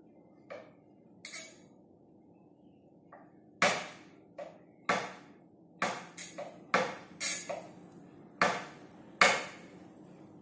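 A baby knocking and banging a wooden push-along walker toy: a run of irregular sharp wooden knocks, about ten over six seconds, starting a few seconds in.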